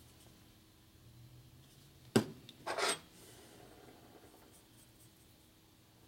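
A sharp metallic click a little over two seconds in, followed by a short scraping rub, as a steel rocker shaft is handled and slid into an aluminium Ironhead Sportster rocker box.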